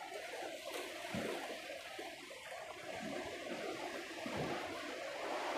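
Sea waves washing and splashing against the rocks and pier below, with a few low thumps of wind buffeting the microphone.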